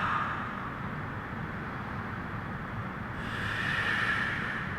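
Deep breathing close to the microphone: an airy breath fading out at the start, then another long, slow breath from about three seconds in that lasts about a second and a half.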